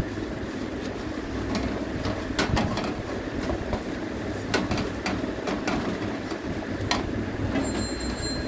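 Onion-tomato masala frying and sizzling in an aluminium kadai while a wooden spatula stirs and scrapes it, with several sharp knocks of the spatula against the pan over a steady low rumble.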